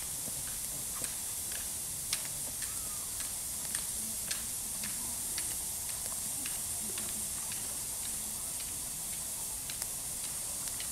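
Small wood campfire crackling: irregular sharp pops and snaps over a steady hiss.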